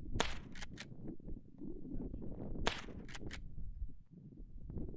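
Two rifle shots about two and a half seconds apart, each followed within half a second by a couple of fainter sharp cracks.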